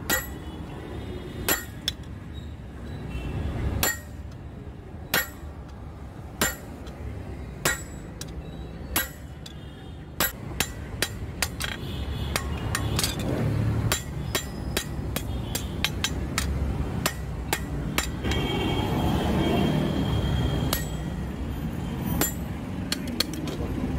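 Hammer blows on a handled forging tool held against red-hot leaf-spring steel on an anvil, ringing metal on metal. The strikes come singly about every second and a quarter, then a quicker run of several a second starts about ten seconds in. A low rumble builds up under the strikes in the second half.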